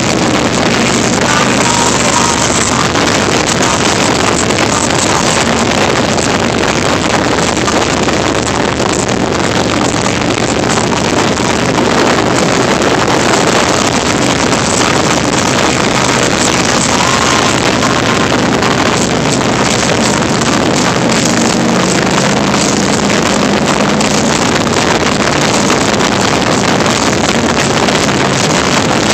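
Harley-Davidson Heritage Softail's air-cooled V-twin running steadily at cruising speed, under loud wind rushing over a handheld phone's microphone.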